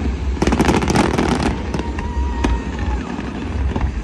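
Aerial fireworks exploding: a rapid cluster of sharp bangs and crackles from about half a second to a second and a half in, then a few separate reports. A faint whistling tone runs through the middle, over a steady low rumble.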